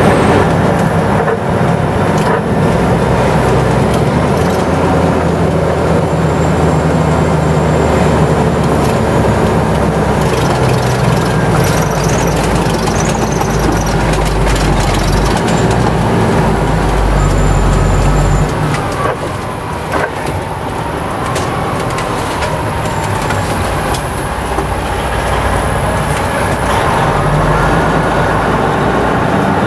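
Steady engine and road noise of a vehicle driving behind a fire company rescue truck, heard from inside the following vehicle. A little past halfway the sound drops and changes to a heavy truck engine running as the rescue truck pulls across the lot.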